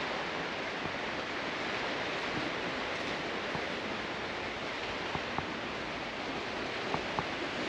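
Steady, even hiss of room noise, with a few faint clicks after about five seconds and again near seven seconds.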